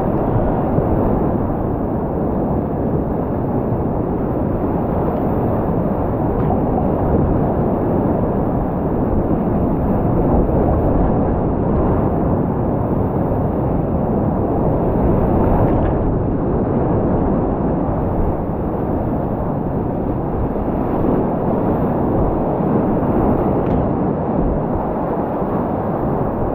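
Steady, loud rush of high-water whitewater rapids, heard from a kayak running through the middle of the rapid.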